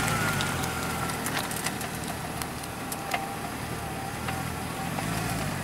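Mercedes CLK 63 AMG's tuned 6.2-litre V8, rated at 540 PS, idling quietly with a steady low hum, with scattered short clicks over it.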